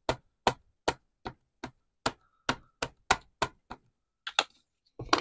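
Ink pad dabbed repeatedly onto a clear photopolymer stamp, making quick sharp taps about three a second with a short pause near the end.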